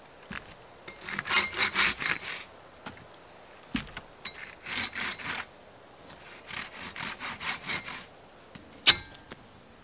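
Hand saw cutting through a dead branch in three bouts of quick back-and-forth strokes, with a single sharp crack near the end.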